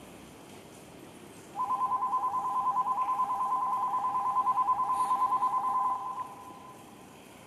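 Station departure bell: an electronic two-tone signal warbling rapidly for about four and a half seconds, starting about a second and a half in and cutting off, signalling that the train is about to leave.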